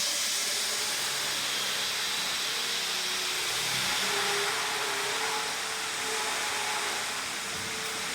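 Open-type diesel generator set with a Ricardo K4100D engine running steadily, heard mostly as an even rushing hiss of air with a faint hum beneath it.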